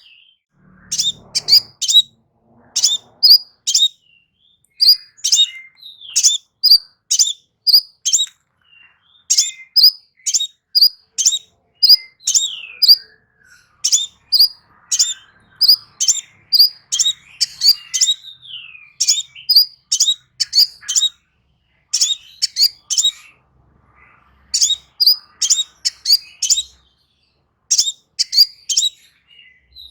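Crimson sunbird singing: a fast string of sharp, high-pitched chirps, about two a second, in runs broken by short pauses, with softer twittering notes between them.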